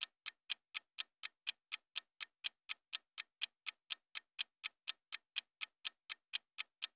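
Clock-ticking sound effect keeping time with a countdown timer: sharp, evenly spaced ticks at about four a second.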